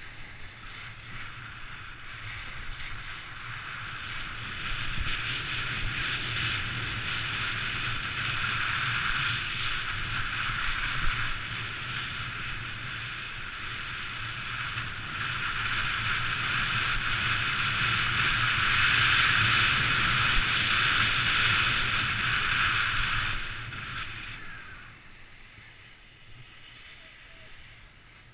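Skis sliding and scraping over snow on a downhill run, with wind rumbling on the microphone. The hiss grows louder, then dies away about three-quarters of the way through as the skier slows to a stop.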